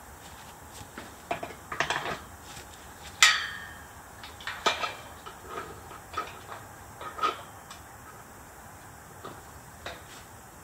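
Hard objects being handled: a scatter of clicks and knocks, with the loudest a sharp metallic clank that rings briefly about three seconds in.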